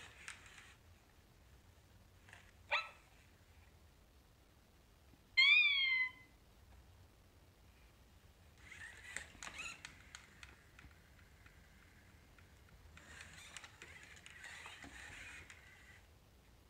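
Sony aibo ERS-1000 robot dog giving an electronic cat meow from its speaker about five and a half seconds in, after a short rising chirp near three seconds. Later its joint servos whir and click as it moves.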